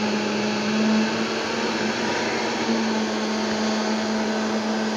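High-powered countertop blender running at a steady speed with an even motor whine. It is blending boiled jalapeños and garlic into an emulsified sauce as olive oil goes in.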